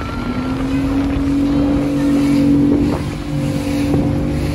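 Small fishing boat's engine running at speed, a steady drone that climbs slightly in pitch over the first couple of seconds, over wind rushing on the microphone and a few thumps of the hull meeting the chop.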